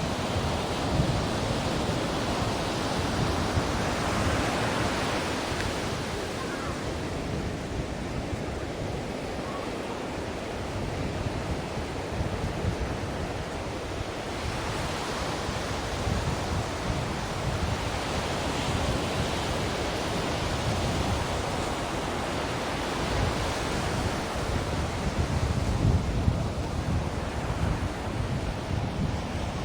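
Ocean surf: waves breaking in a steady rushing wash of noise that swells and eases every several seconds.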